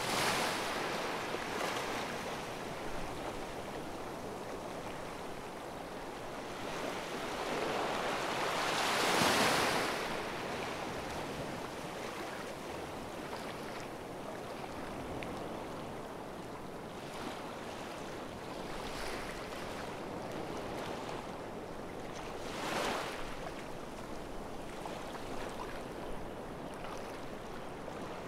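Sea surf washing onto a beach: a steady hiss of waves that swells as each one comes in, the biggest surge about nine seconds in and another near twenty-three seconds.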